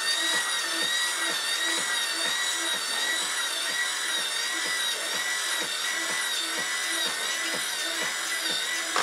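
Electric tipping mechanism of a scale RC tipper truck running as the tipper bed lowers: a steady high motor and gear whine with a regular tick about two to three times a second.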